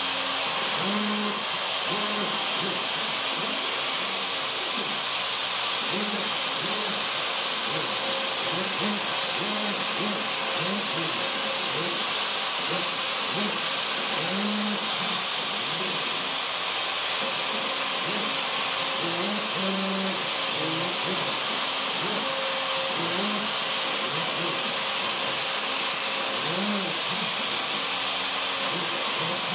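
Craftsman 2 hp router on a CNC machine, spinning a 1/16-inch tapered ball-nose bit and running steadily as it carves lettering into a cedar fence picket. Short rising and falling lower tones come and go underneath as the machine moves the bit.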